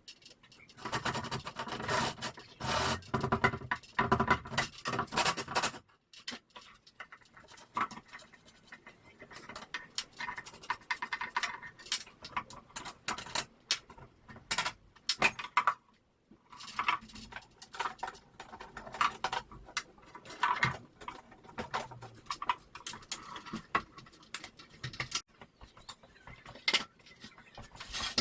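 Irregular clicks, clinks and rattles of hardware and tools being handled, busy for the first six seconds, then sparser.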